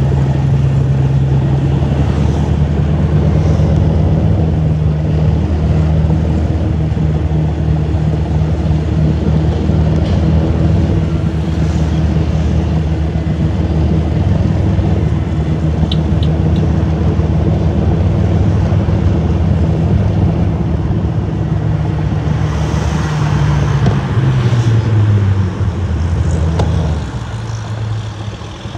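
Car engine and road noise while driving: a steady low hum whose pitch falls about three-quarters of the way through, then eases off near the end.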